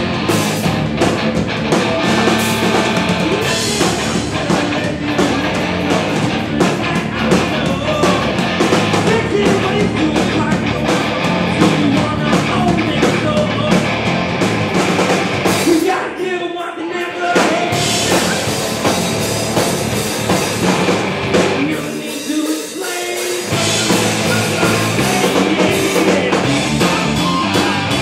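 Southern rock band playing live: electric guitars, bass and drum kit, with sung vocals. Twice, about halfway through and again a few seconds later, the bass and drums drop out for a moment before the full band comes back in.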